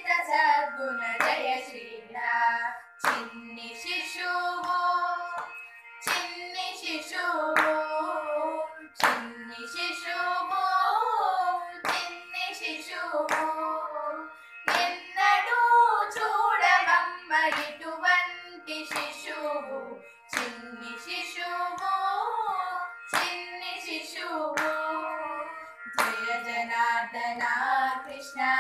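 Three female voices singing a Carnatic devotional song together, with hand claps and slaps on the thigh keeping the tala about every second and a half, over a steady drone note.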